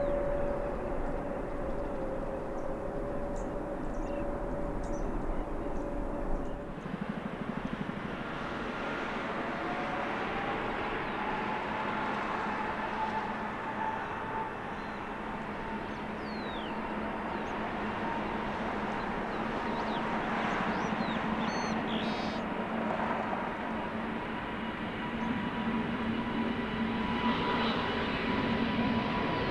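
Jet airliner engines running at a distance: a steady rumbling hum with a held whining tone. About seven seconds in the sound changes abruptly, and after that an engine whine rises slightly in pitch and settles, with a few short high chirps over it.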